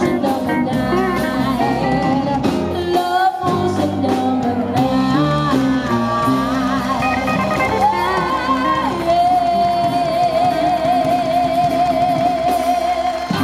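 Upbeat rock and roll music with a singer and guitar. In the second half a single note is held for several seconds with vibrato.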